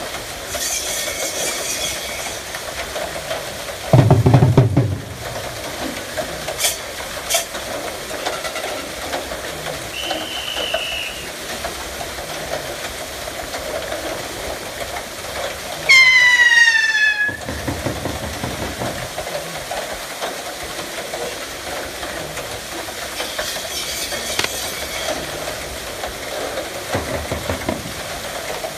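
Wooden gearing of a bullock-driven Persian wheel clattering steadily as a pair of bulls drive it round at a run. A brief loud low burst comes about four seconds in, and a short loud call falling in pitch about sixteen seconds in.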